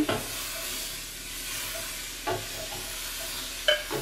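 Beef and tomatoes sizzling in a stainless steel pan on a gas burner as pre-boiled pasta is tipped in and stirred with a wooden spoon. Two short clunks from the stirring, about two seconds in and again near the end.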